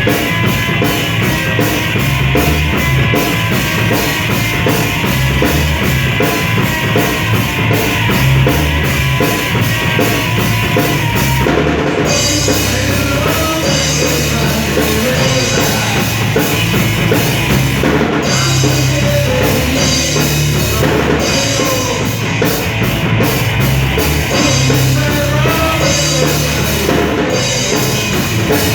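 Loud rock music with a full drum kit and a steady beat, with a change in the arrangement about twelve seconds in.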